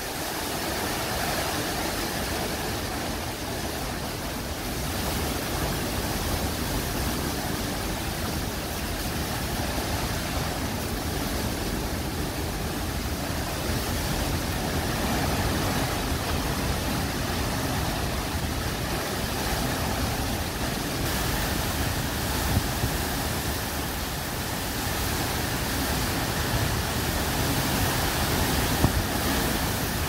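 Derecho straight-line winds and driving rain: a steady rushing noise with gusts buffeting the microphone. A couple of brief knocks come through near the end.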